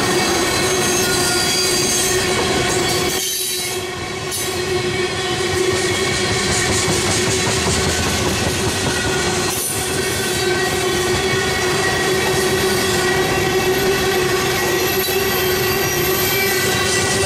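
Loaded freight train of tank cars rolling past on a curve, its rumble overlaid by a steady high-pitched squeal from the car wheels. The sound dips briefly about three to four seconds in.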